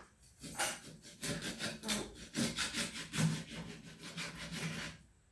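Rhythmic rasping, rubbing strokes, about three a second, that stop near the end.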